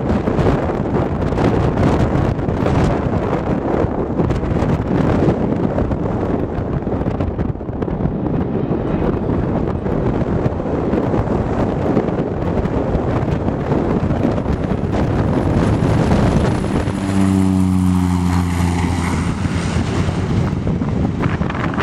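Cessna Caravan's PT6A turboprop at takeoff power, heard over heavy wind rumble on the microphone. About 17 seconds in, the propeller's buzzing drone and a high turbine whine come up strongly as the plane passes close by, then fade as it climbs away.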